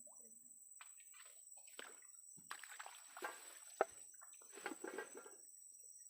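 Water splashing and sloshing in a few short bursts, with one sharp knock about four seconds in.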